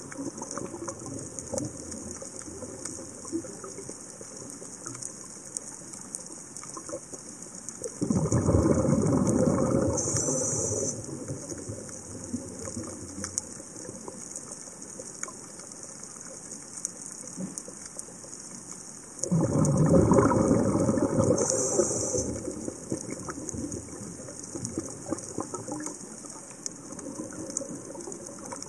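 Underwater ambience, a steady hiss with scattered faint clicks, broken twice about eleven seconds apart by a few seconds of loud bubbling rush: a scuba diver's regulator exhaling bubbles.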